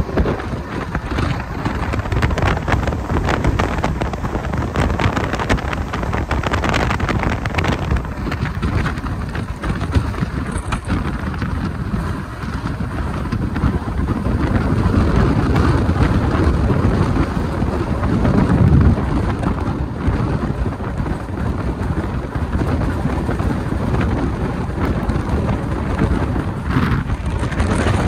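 Passenger train running at speed, heard from on board: a steady low rumble with dense rattling and rushing noise, swelling a little in the second half.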